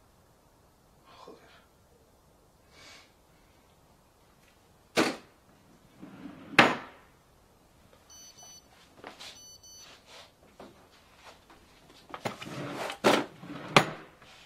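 A mobile phone being handled: two sharp plastic clicks, then two quick runs of short electronic beeps, then more clicking and rustling near the end.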